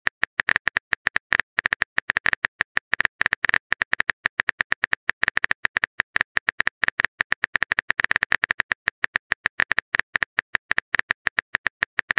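Phone keyboard typing sound effect: a fast, irregular run of short clicks, one per letter, as a text message is typed out.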